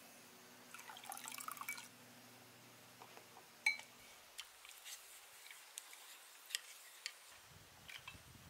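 Faint clinks and ticks of chopsticks and a small ceramic bowl against a clay pot, with liquid dripping as a sauce is poured and stirred into the broth, followed by scattered light clicks of dishes. The sharpest click comes a little before halfway, and a faint low hum stops abruptly about halfway.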